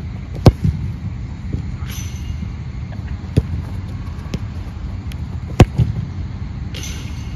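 A football struck hard twice with the foot, about five seconds apart, each sharp strike followed by a couple of lighter knocks, over a steady low rumble.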